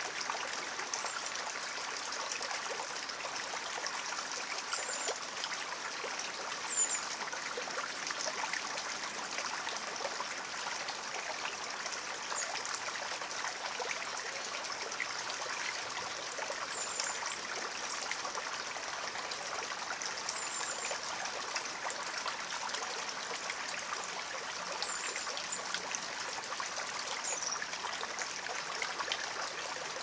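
Small rocky stream running: water trickling and splashing over stones into a pool, a steady, even rush. Brief high chirps come every few seconds.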